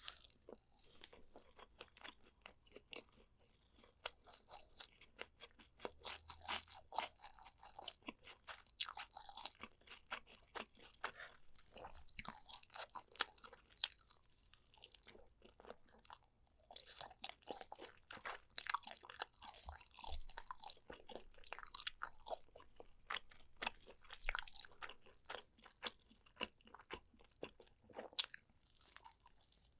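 Close-miked eating of spicy soy-braised pork ribs: a steady run of chewing and biting, with many small sticky clicks and wet smacks and a few short lulls.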